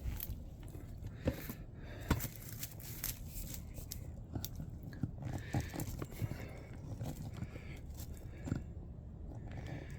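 Scattered clicks, knocks and rustles of things being handled, with no power sander running.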